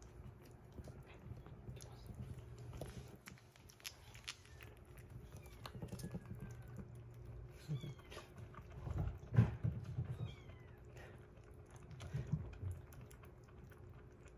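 A kitten lapping and chewing soft wet weaning food from a glass bowl, with small wet clicks, joined by a few short, thin, high kitten mews that fall in pitch around the middle. A louder low bump comes about nine seconds in.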